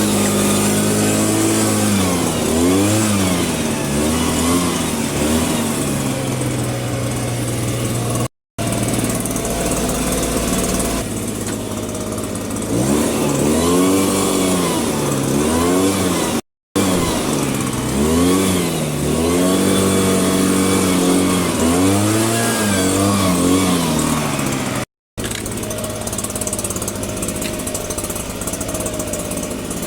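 Small two-stroke engine of a handheld gas garden tool, revving up and down over and over, each rev rising and falling in pitch within about a second, between steadier stretches near idle. The sound breaks off abruptly three times, about every eight seconds.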